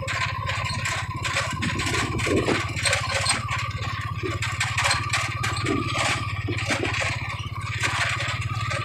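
Vehicle engine running steadily, with rattling and clattering from travel over a rough, rocky track.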